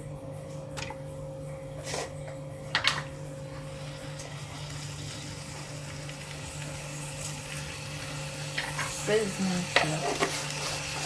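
Meat, onions and seasoning sizzling quietly in a pot on the heat, with a few light knocks early on. Salt is sprinkled into the pot around the middle, and the hiss grows louder after that.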